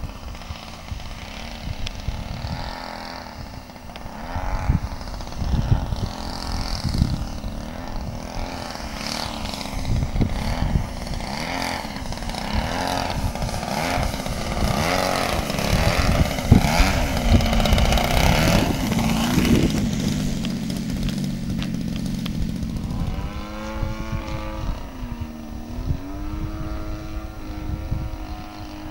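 Small engine and propeller of a radio-controlled aerobatic model airplane in flight, its pitch sliding up and down as the plane passes and manoeuvres, loudest around the middle. Near the end the engine tone steadies, dips in pitch once and comes back up.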